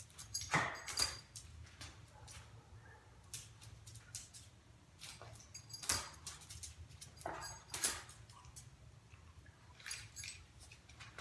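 A Basenji's claws clicking on a concrete floor and its collar tags jingling as it moves around, in scattered short taps and rattles, over a faint low steady hum.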